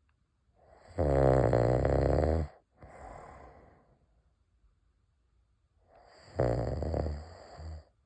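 A man snoring loudly: two long, rattling snores about five seconds apart, each followed by a softer breath out.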